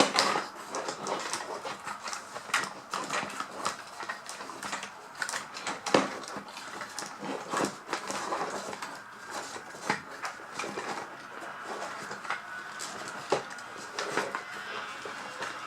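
Plastic toy packaging and parts being handled: irregular clicks, taps and crinkling, with a few sharper knocks.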